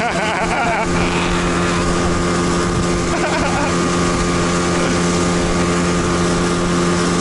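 Outboard motor running at a steady, unchanging pitch, driving an inflatable boat along at speed, with water and wind rushing past.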